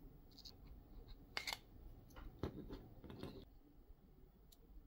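Faint clicks and light scrapes of a thin pry tool and fingers working on the opened Siri Remote's parts, with the clearest click cluster about a second and a half in and a rougher scraping patch shortly after.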